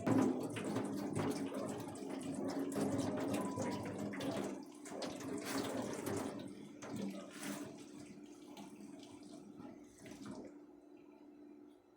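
Tap water running into a sink, with a few knocks and clatters, shutting off about ten and a half seconds in. A steady low hum runs underneath.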